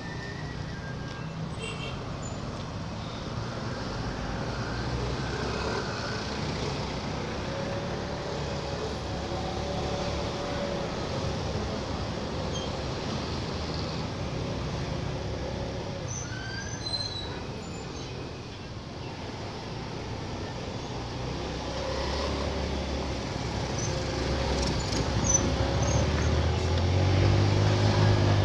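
Traffic noise heard from a small motorcycle on the move: its engine running under wind and road noise, with other motorbikes and a bus around it. The engine grows louder over the last few seconds.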